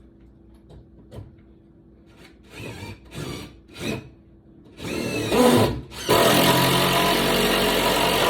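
Electric power tool started in a few short bursts, then run steadily and loudly from about six seconds in.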